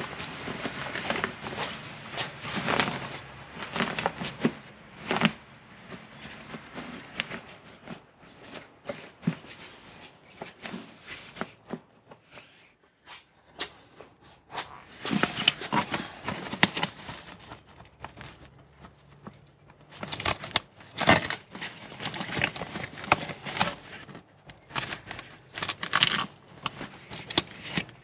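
Bag fabric rustling and crinkling as hands work a stiff liner panel into a motorcycle top bag, with many short handling clicks. Quieter for a moment around the middle, then busier handling again.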